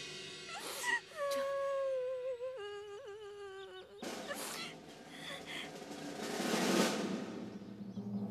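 A person wailing in grief: one long wavering cry, then breathy sobbing that swells near the end.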